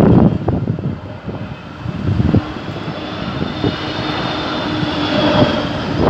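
Airbus A320neo passing low overhead, its turbofan engines a steady rush with a faint high whine through the middle. There are a few short, louder low bursts at the start, about two seconds in, and at the end.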